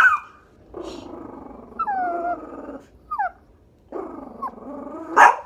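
Shih Tzu growling at a dog seen outside the window: two long, low growls, set between a sharp bark right at the start and another about five seconds in.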